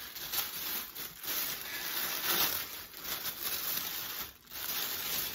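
Tissue paper rustling and crinkling as hands rummage through wrapped items, coming and going irregularly.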